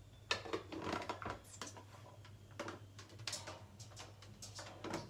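A spoon clinking and tapping against a small glass jar in irregular short strokes as a thick face-mask mixture is stirred by hand.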